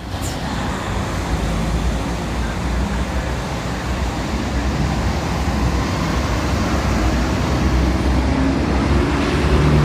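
Heavy diesel truck engine idling: a steady low rumble, with a deeper hum growing stronger near the end.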